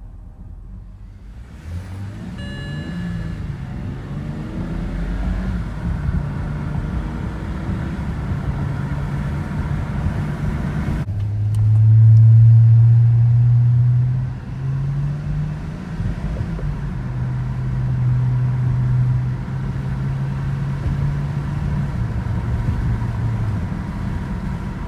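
BMW 325i's N52 inline-six engine running at an uneven speed: its pitch rises and falls over the first few seconds, then holds at levels that step up and down. About 11 seconds in it changes suddenly and runs louder for a few seconds. This is the rough idle the owner is showing.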